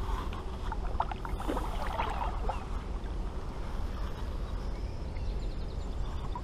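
Water sloshing against a kayak hull over a steady low rumble, with a cluster of small knocks and squeaks about a second in.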